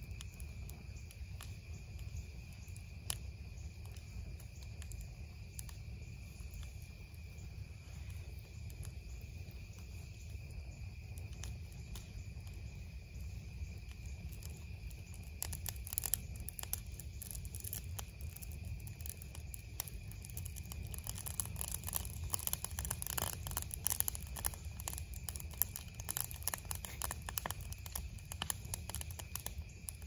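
Wood campfire crackling and popping, the pops coming much thicker in the second half, over a steady high-pitched chorus of night insects.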